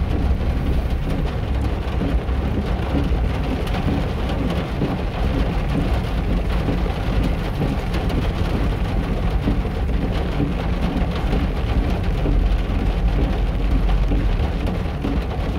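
Steady rain falling and pattering on surfaces, with a low rumble underneath.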